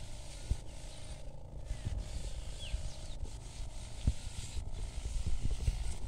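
Knapsack sprayer spraying: a steady hum with a hiss from the nozzle that stops briefly a few times, over low handling rumble and occasional knocks.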